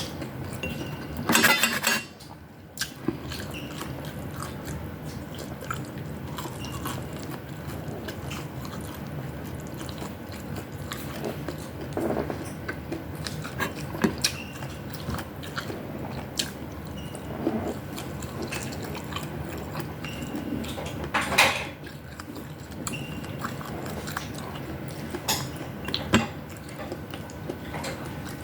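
Cutlery clinking and scraping against a plate or bowl during a meal, with chewing. There are scattered light clicks and two louder clatters, one about a second in and one about two-thirds of the way through.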